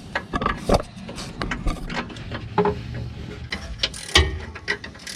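Hand ratchet clicking in short, irregular strokes as bolts are run in, with scattered metallic clinks and knocks.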